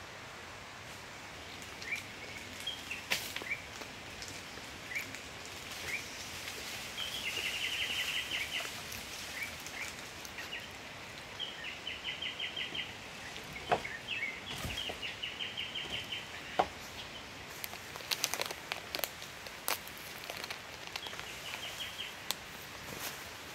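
Birds calling over a steady forest background hiss: short chirps and about four rapid chattering trills, each lasting around a second. Scattered sharp snaps and knocks come and go, most of them in the second half.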